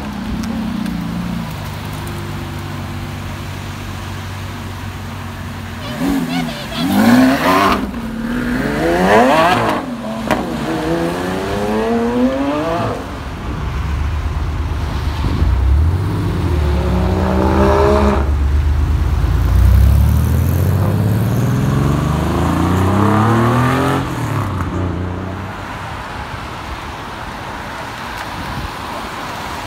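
Sports car engines idling, then revved in sharp blips about 7 and 9 seconds in, followed by engines pulling away with pitch rising and falling through the gears. Settles back to an idle near the end.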